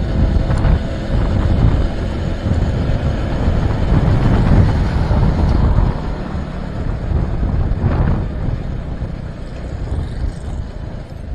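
Wind rushing over the microphone of a moving motorcycle, with engine and road noise underneath; it eases a little after about six seconds.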